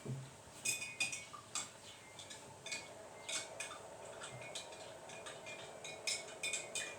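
Pet lovebirds making short, sharp, high chirps and clicks at an irregular pace, a dozen or more, some close together.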